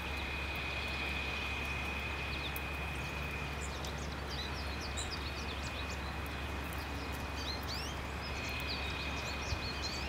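Small songbirds chirping, a quick scatter of short high notes starting about three seconds in, over a steady outdoor background with a low rumble and a constant high tone.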